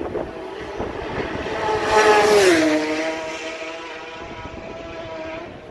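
Superbike racing motorcycle passing flat out, its engine note building to a peak about two seconds in and dropping sharply in pitch as it goes by, then fading as it carries on down the road.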